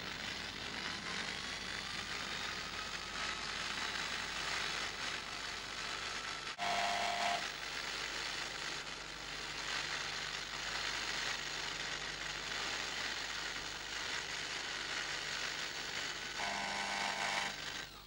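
Electric hand drill running, its whine rising in pitch over the first few seconds as the motor spins up, then holding steady. Twice a short steady tone cuts in over it, about seven seconds in and again near the end.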